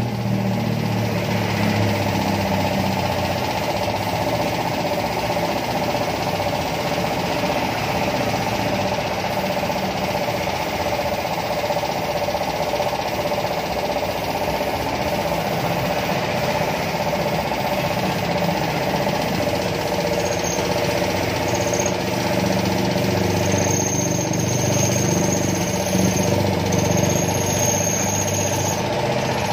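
Air compressor running steadily under the hiss of a paint spray gun spraying black paint onto a motorcycle muffler.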